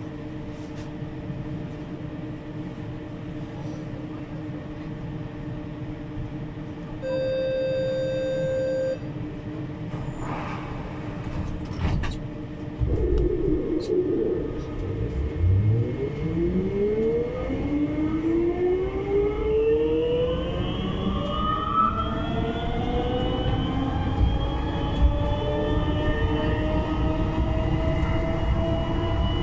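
Siemens VAL 208 rubber-tyred metro standing with a steady equipment hum. About seven seconds in comes a two-second warning tone, then a few knocks. From about halfway the traction motors start with several tones rising together in a climbing whine as the train pulls away and accelerates.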